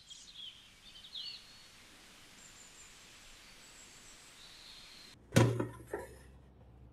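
Birds chirping over a faint outdoor hiss. About five seconds in, a loud sharp clack and a few smaller knocks as the air fryer basket is pulled out, with a low hum behind them.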